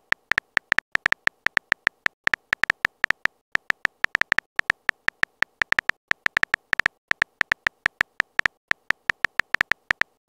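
Virtual keyboard typing clicks, one short ticking click per letter at about six a second, with short pauses between bursts as a text message is typed out.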